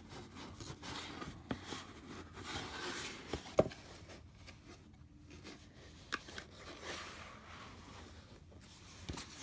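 Cardboard box being handled and turned over: faint rubbing and scraping of cardboard under the hands, with a few light taps and clicks, the sharpest about three and a half seconds in.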